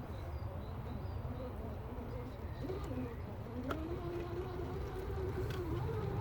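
Electric motor and gear drivetrain of an RC rock crawler whining at crawling speed. The pitch rises about three seconds in and then holds, wavering slightly.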